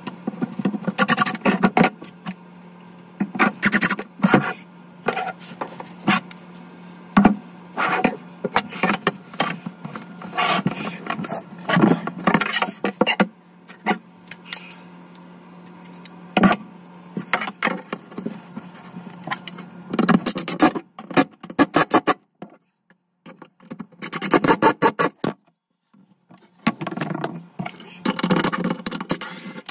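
Ryobi cordless impact driver driving screws into cabinet panels in repeated short bursts, over a steady low hum.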